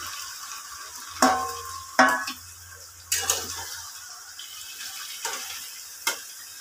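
Marinated chicken pieces tipped into a hot frying pan and sizzling, with a metal plate and spatula knocking and scraping against the pan. Two sharp clanks about a second and two seconds in, the second one ringing, then lighter knocks as the pieces are stirred.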